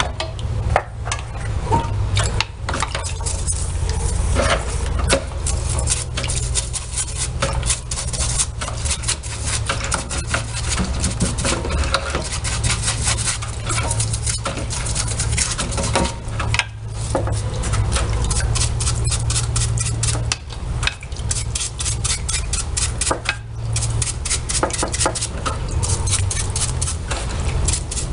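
A brush scrubbing a washing-machine transmission's wash shaft in rapid back-and-forth strokes, bristles rasping on greasy metal, with a low steady hum underneath.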